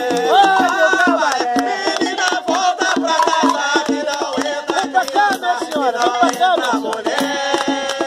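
Hand drum played in a fast, steady rhythm with a shaken rattle, under voices singing a ritual chant (a ponto).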